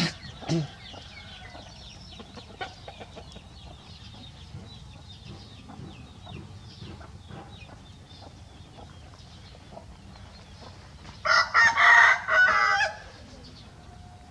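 Chickens clucking, with a rooster crowing loudly for almost two seconds near the end. Two short, loud sounds come right at the start.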